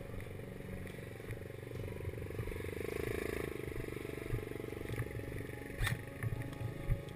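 Small off-road buggy's engine running as it moves along a dirt track, swelling a little about three seconds in. A few sharp clicks come near the end.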